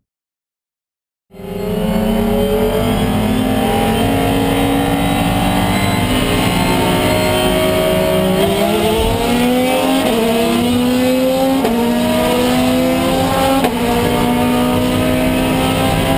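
Race car engine heard from inside the cockpit, cutting in about a second in and accelerating hard. Its pitch climbs steadily and drops sharply at three upshifts.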